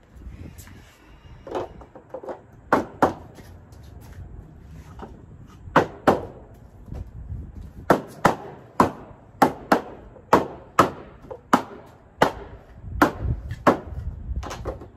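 Sharp knocks as a plastic shelving unit is banged together during assembly, a couple of dozen in all, scattered at first and then coming in quick runs of two or three from about eight seconds in.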